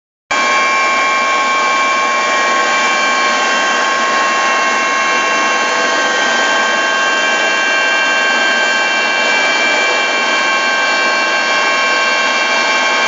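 Helicopter turbine engine and rotor running steadily: a loud, unbroken whine of several high steady tones over dense noise.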